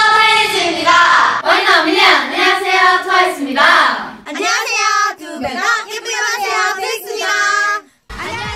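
Several young women's voices chanting a group greeting in unison, in a sing-song pitch. A little over four seconds in, a different group takes up another unison chant, and the voices cut off briefly near the end.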